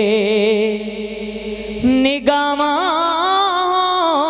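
A naat reciter singing unaccompanied, drawing a syllable out into a long held note with heavy vibrato. He moves to a new, higher held note about two seconds in.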